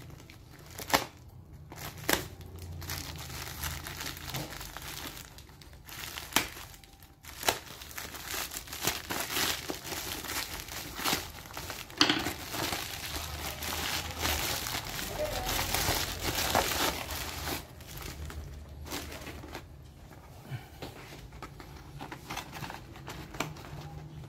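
Packaging crinkling and tearing as a parcel is unwrapped by hand, with sharp clicks and taps now and then. The crinkling is densest about a third to two-thirds of the way through.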